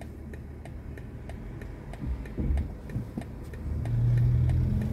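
Turn-signal indicator ticking inside a car's cabin, about two clicks a second. About four seconds in, a low steady hum grows louder as the electric BMW i4 M50 pulls away.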